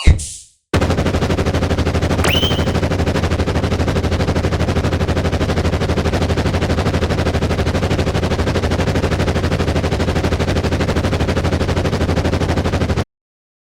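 The last ring of an electronic railroad crossing bell dies away. Then a loud, fast, steady rattling sound effect with a heavy low rumble starts, with a short rising whistle about two seconds in, and runs for about twelve seconds before cutting off abruptly.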